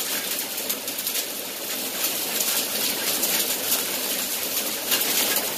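Hail mixed with rain pelting a balcony: a dense, steady clatter of many small hits.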